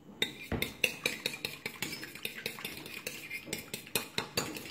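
Metal fork beating a raw egg in a ceramic bowl: quick, uneven clinks of the tines against the bowl, a few a second.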